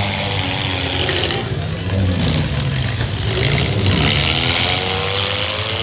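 Several small demolition derby cars' engines running and revving together, pitch rising and falling as they accelerate across the dirt, with a few rising revs in the second half.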